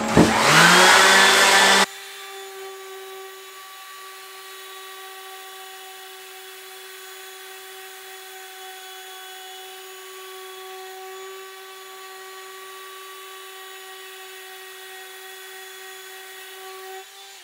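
Random orbital sander spinning up and sanding the side of a hickory hammer handle flat, its pitch rising in the first second. About two seconds in the sound cuts suddenly to a much quieter, thin, steady whine that holds until just before the end.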